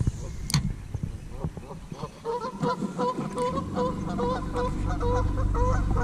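Geese honking over and over, a few short calls a second, starting about two seconds in. A low steady hum comes in under the calls partway through.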